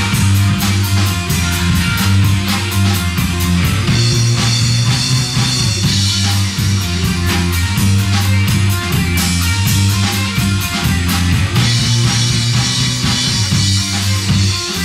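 Band music with guitar and drums: a fast, steady beat of drum and cymbal hits over a loud, low line that moves from note to note.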